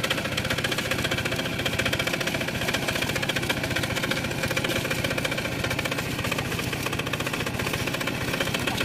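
Single-cylinder diesel engine of a two-wheel walking tractor running steadily with a rapid, even beat, working against a load while its cage wheels spin and sink in soft paddy mud.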